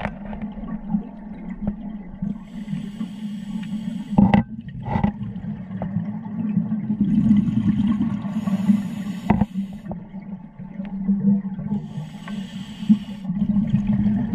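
Underwater sound on a scuba dive: a scuba diver's regulator exhaust letting out bursts of bubbles, three times about every four to five seconds, over a steady low hum, with a few sharp knocks.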